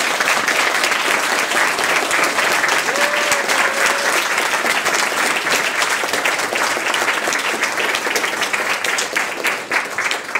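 Crowd applauding, dense steady clapping that fades out just after the end, with one voice giving a short call about three seconds in.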